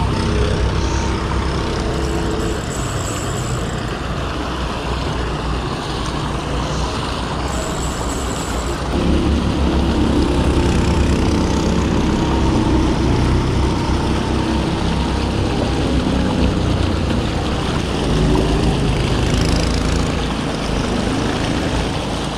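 Steady rush of a small spring creek tumbling over a riffle and little cascade, with a low rumble underneath. It gets louder about nine seconds in.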